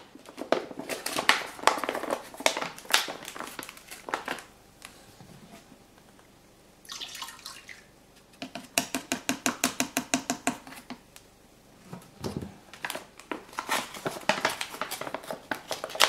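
Crinkling and clicking of a yeast pack and a plastic fermenter lid being handled as yeast is pitched into the bucket. In the middle comes a short, quick, even run of clicks as the pack is emptied into the wort.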